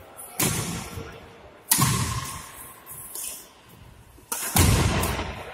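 Three loud thumps, each ringing on in the large hall's echo: the first a little after the start, the second near two seconds in, the loudest a little past four seconds.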